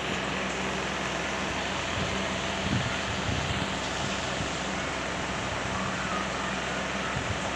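Electric fan running steadily, a constant whooshing hiss with a low hum under it; a few soft knocks about three seconds in.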